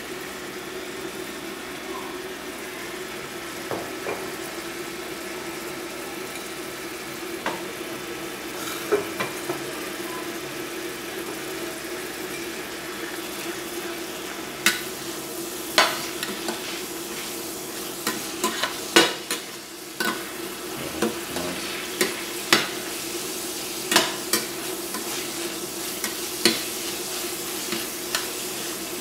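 Chicken intestines, garlic and ground chili sizzling and frying in a stainless steel pan, stirred with a metal spoon that clinks and scrapes against the pan, the knocks coming more often from about halfway on. A steady low hum runs underneath.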